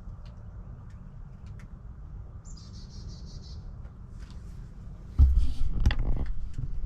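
Steady low outdoor rumble with a short, rapid, high bird trill about two and a half seconds in. From about five seconds in, loud low thumps and rustling take over.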